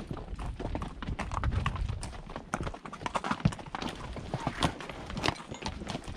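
Horses walking over rocky ground, hooves striking stone in an irregular clip-clop of sharp knocks.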